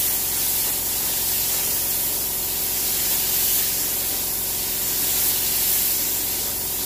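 Compressed-air paint spray gun hissing steadily, with a steady low hum underneath.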